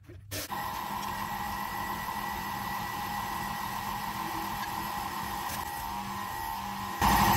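A steady mechanical hum with a faint whine in it. Near the end it jumps much louder as the air-over-hydraulic ram on the engine hoist starts pumping with a rapid, even pulsing.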